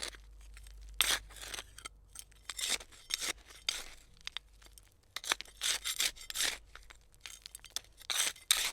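Hand trowel digging into soil: a series of short, irregular gritty scrapes as the blade cuts and scoops, with brief pauses between strokes.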